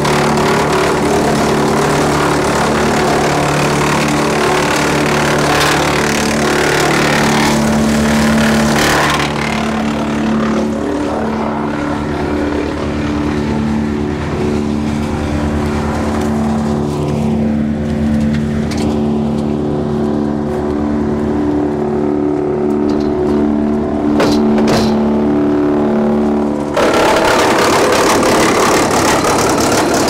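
Tractor-driven Woodland Mills TF810 PRO PTO wood chipper running at speed, with a steady drone from the tractor and flywheels underneath. For about the first nine seconds branches are being chipped, a loud dense grinding noise. Then the chipper spins empty as a steady hum until the chipping noise cuts in again suddenly near the end.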